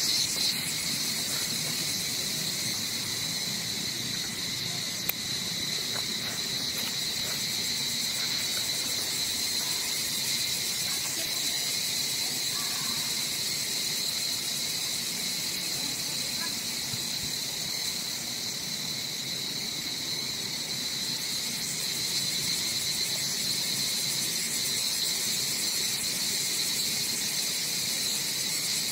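Steady chorus of insects: a continuous high, shrill drone with no pauses or changes.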